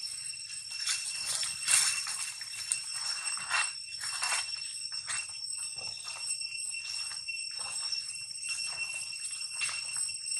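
A steady, high-pitched insect chorus, with irregular rustling and crunching of dry leaves on the ground.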